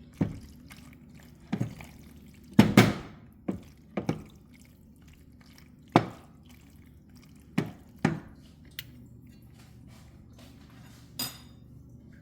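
Kitchen utensil knocking and clattering against a pan and dishes while pasta is stirred and heated through: about ten irregular knocks, the loudest a double clatter near three seconds in, and a short ringing clink near the end.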